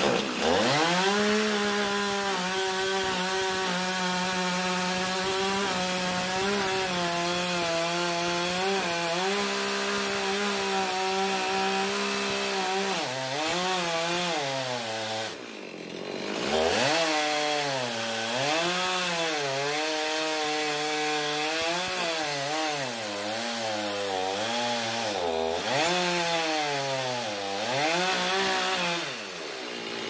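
Chainsaw mounted in an Alaskan chainsaw mill, ripping a slab off a mulberry log at full throttle. Its pitch holds steady and high for about the first dozen seconds, then sags and recovers again and again under the cutting load, with a brief let-off of the throttle about halfway through.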